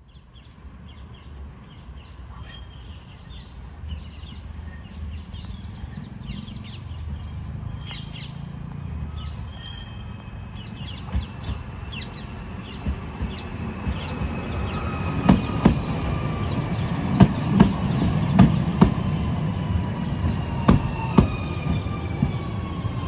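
Alstom Citadis Dualis tram-train approaching and passing close by: a low rumble that grows steadily louder, with a gently falling electric whine as it slows and many sharp clicks as it comes past in the second half. Birds chirp in the first part.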